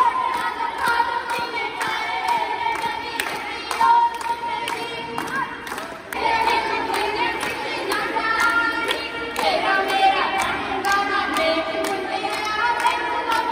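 Group of women singing Punjabi boliyan for giddha, keeping time with steady rhythmic hand clapping. The singing dips briefly about six seconds in, then comes back fuller.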